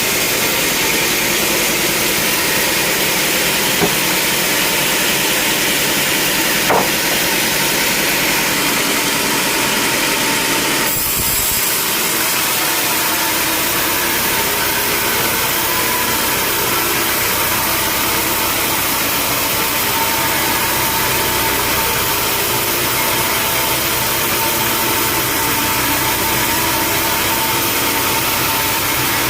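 Sawmill machinery running steadily with a loud, even engine noise. A short knock comes about seven seconds in, and the sound changes abruptly about eleven seconds in.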